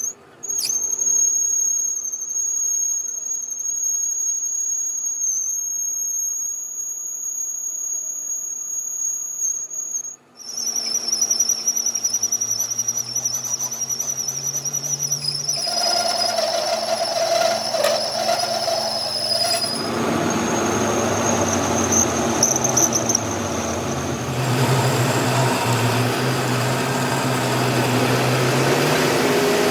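A high-pitched, steady mechanical squeal, broken off briefly twice, then becoming noisier with a low hum underneath and a shifting whine.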